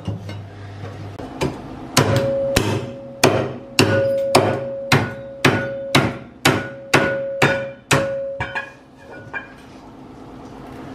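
Kitchen cleaver chopping through raw beef bones on a plastic cutting board. Two single chops come first, then a run of about a dozen hard chops at roughly two a second, with a ringing tone held under them. The chopping dies out about nine seconds in.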